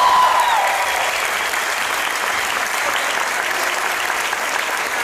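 Audience applauding steadily, many hands clapping, with a voice trailing off in the first second.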